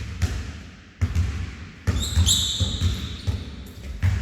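Basketball being dribbled on a hardwood gym floor, deep bounces about two to three a second. About two seconds in a high squeal, typical of a sneaker on the court floor, is heard over the dribbling for about a second.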